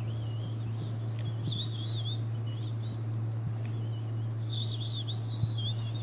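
Soft, wavering, high-pitched bird chirps, twice (about a second in, and again from about four and a half seconds), over a steady low hum.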